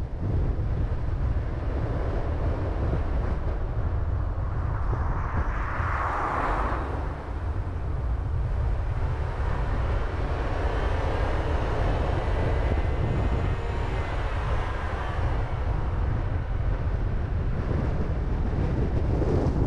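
Wind buffeting the microphone over the low rumble of a car on the road. About six seconds in there is a louder rush, and in the middle a faint whine with several tones rises and falls.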